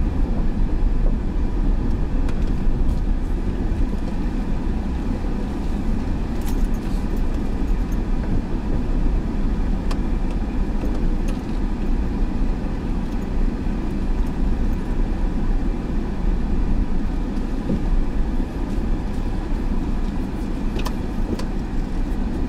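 Car driving slowly on a gravel road: a steady low rumble of engine and tyres, with a few sharp clicks. It grows a little quieter near the end.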